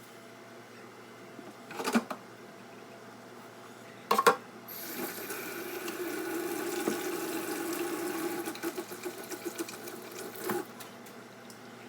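Water running steadily for about four seconds, with two knocks before it and scattered clicks and a knock as it ends.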